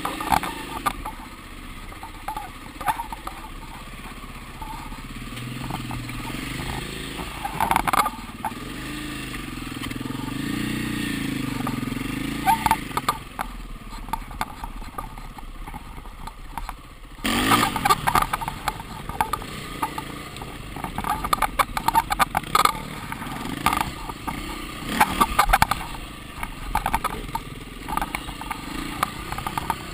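KTM enduro dirt bike engine running on a rough trail, its note rising and falling with the throttle. Many short knocks and rattles of the bike over rocks and roots, with more of them in the second half.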